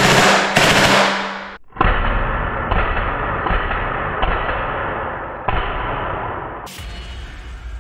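Full-auto burst from a TAG TG92 CO2 blowback BB pistol, a PT92 replica: a very rapid stream of shots with the slide cycling, which stops sharply about a second and a half in. After a brief gap comes a longer, duller stretch of the same rattling noise that restarts several times, and a sharp hit near the end.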